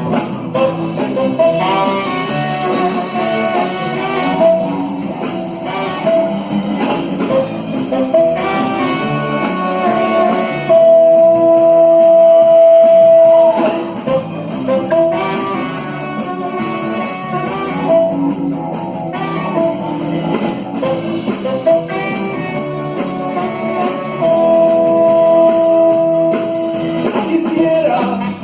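Band playing an instrumental passage of a romantic ballad, a guitar melody in front, with two long held notes, the first one the loudest moment.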